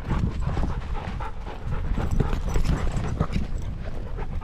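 A dog panting hard close to the microphone, with a quick, uneven run of soft knocks and thumps.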